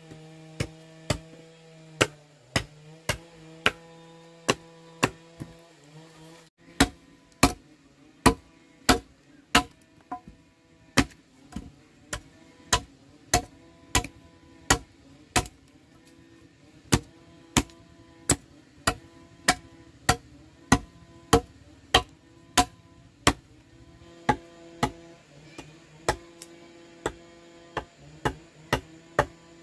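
Machete blade chopping into the end of a short wooden log resting on a wooden block, sharp strikes at about two a second, with a brief pause about six seconds in.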